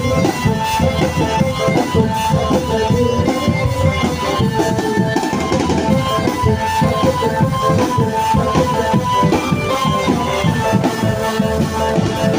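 Live drumband music: marching snare drums, tom sets and bass drums beating a dense, driving rhythm, with a pitched melody line running over them.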